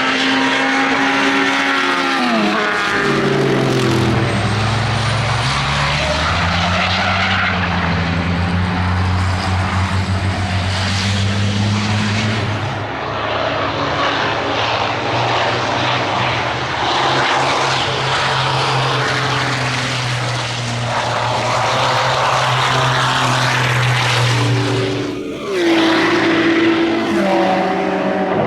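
Racing car engine running hard on a circuit: its pitch drops about two seconds in as it goes past, then holds a long steady note, and near the end a brief break is followed by a higher note climbing again.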